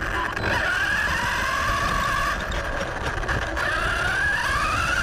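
Brushless motor and drivetrain of an Arrma Talion RC truck whining as it drives over gravelly dirt, close to an onboard camera, with tyre and gravel noise beneath. The whine sags early on, holds, then dips and climbs again near the end as the throttle comes back on.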